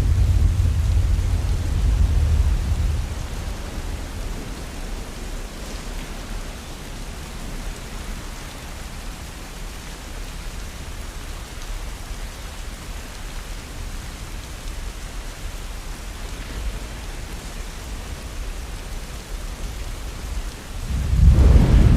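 Steady rain falling, with rolling thunder: a deep rumble fades out over the first few seconds, and another roll of thunder swells in just before the end.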